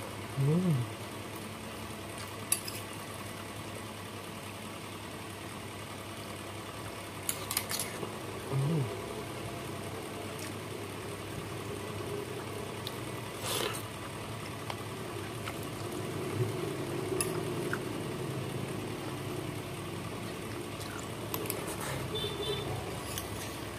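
Metal spoon clinking lightly against a glass bowl a handful of times, spread out, while eating soup and rice, over a steady low background noise. Two short hummed vocal sounds, one just after the start and one about nine seconds in.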